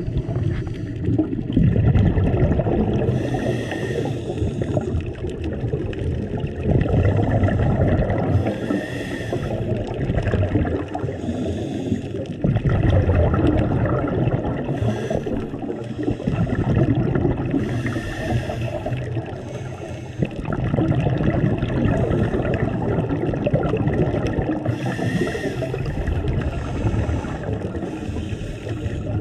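Scuba regulator breathing heard underwater through a camera housing: a hissing inhale every few seconds, with a low bubbling rumble of exhaled air between them.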